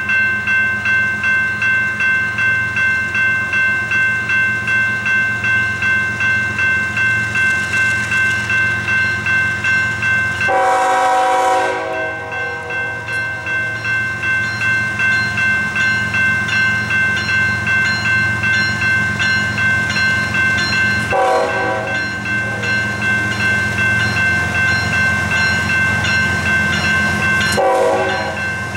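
Grade-crossing bell ringing steadily, about twice a second, as a Norfolk Southern freight led by a GE ES44AC diesel locomotive approaches with a low engine rumble. The locomotive's air horn sounds one long blast about ten seconds in, then two shorter blasts, the last near the end.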